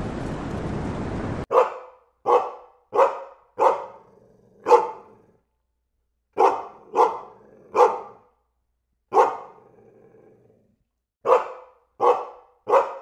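A steady hiss stops abruptly about a second and a half in. Then a dog barks about a dozen times: short, sharp single barks in uneven groups of two to four with pauses between them.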